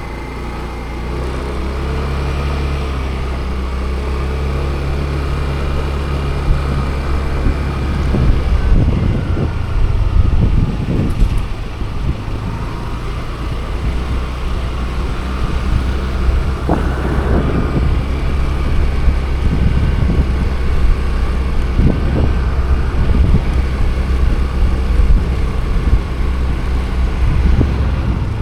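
Car driving along a road: a steady low engine hum with road noise and a few brief knocks or thumps.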